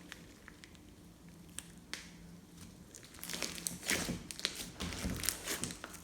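Hands squeezing and stretching glossy slime. A few faint clicks come first, then from about halfway a dense run of sticky crackles and small pops.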